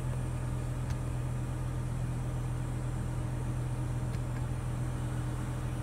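Steady low hum of the BMW M5's 5.0-litre V10 idling, heard from inside the cabin with the climate control running, and a couple of faint clicks.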